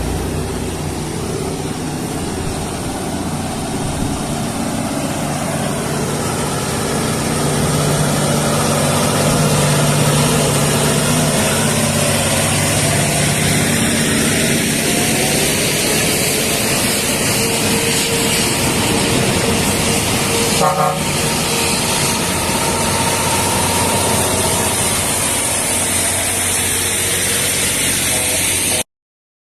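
Heavy diesel machinery running steadily and loudly, with a brief horn-like toot about two-thirds of the way through.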